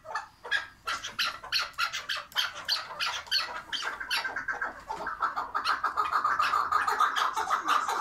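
Chukar partridge calling: a fast run of repeated clucking notes that quickens into continuous chattering from about five seconds in.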